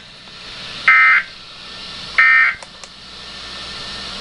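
Emergency Alert System digital data bursts: two short, loud, buzzy screeches about a second and a half apart, with two faint clicks after them. Underneath is steady broadcast hiss that grows slowly louder.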